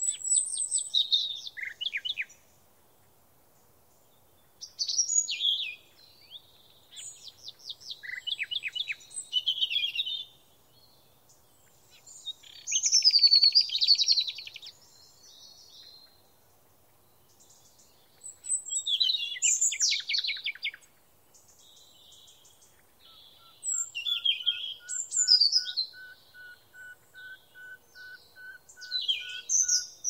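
Songbirds singing in the wild: about seven separate high, twittering song phrases, each a couple of seconds long and full of fast trills, with short pauses between them. In the last third a soft, lower note repeats steadily about twice a second beneath the songs.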